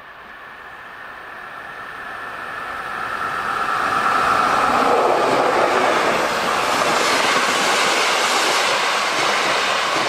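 DR class 118 diesel locomotive 118 552 approaching and passing close by at speed with a train of passenger coaches: its engine sound grows steadily louder over the first four seconds, then the locomotive and the coaches' wheels rush past on the rails.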